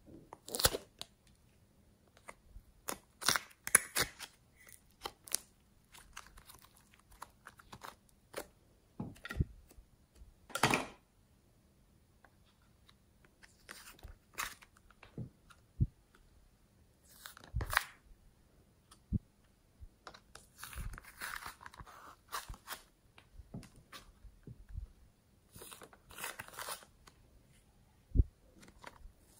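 Foam clay being pried out of a plastic tray and handled: irregular soft tearing and crackling, with a few sharp taps on plastic.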